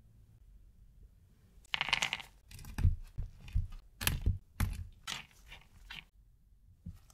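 Kitchen knife chopping shelled pistachios on a cutting board: a run of crunchy cuts, each with a dull knock of the blade on the board, about two a second, starting about two seconds in and stopping about six seconds in.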